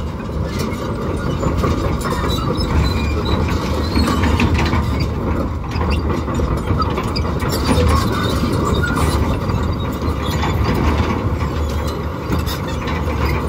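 Komatsu PC210LC-10 hydraulic crawler excavator travelling on its steel tracks. The diesel engine runs under load, with a steady run of clanks and clicks from the track links and undercarriage.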